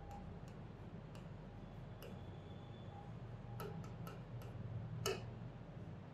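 Writing on a blackboard: faint, irregular sharp taps and clicks of the writing tip against the board, over a low steady hum.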